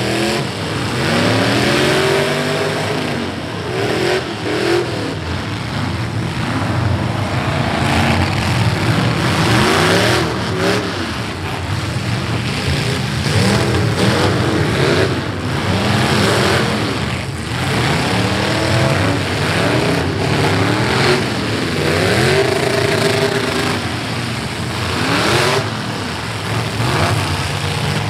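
Several demolition derby cars' V8 engines revving hard and rising and falling in pitch, overlapping one another, with several sudden crashes of cars ramming each other.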